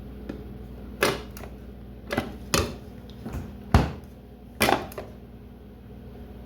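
Five sharp clicks and knocks at a Whirlpool refrigerator's door ice dispenser, spaced a second or so apart, over a steady low hum. No ice comes out: the owner takes it that the new fridge is already out of ice.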